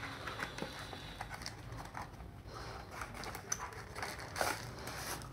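Cardboard packaging being handled and opened: soft rustles, scrapes and small taps. The loudest tap comes about four and a half seconds in.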